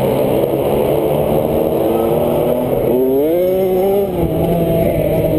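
A small youth flat-track motorcycle's engine working hard, heard from on board. About three seconds in, the engine note rises sharply as the bike accelerates out of the turn onto the straight, then holds high.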